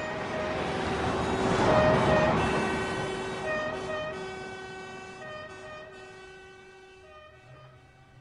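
Bagpipes playing a melody of held notes over a steady drone, fading away over the last few seconds. A broad rushing swell rises and passes about two seconds in.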